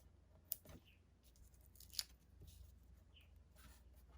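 Faint rustles and light ticks of hands handling a card-stock sentiment and a sheet of foam dimensionals, a few short sounds spread through the quiet, the loudest about two seconds in.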